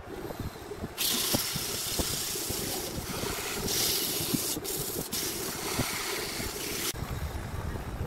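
Sandpaper held against a wooden vase spinning on a wood lathe: a loud, even hiss that starts about a second in, drops out briefly twice, and stops near the end, over the steady low hum of the running lathe.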